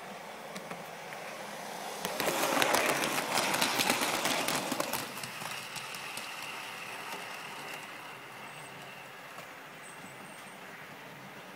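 OO gauge model train running on its track: a clattering rumble with rapid clicks swells about two seconds in and dies away after about five seconds, leaving a faint steady high whine.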